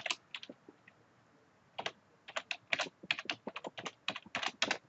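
Typing on a computer keyboard: a few keystrokes, a pause of about a second, then a quick run of keystrokes.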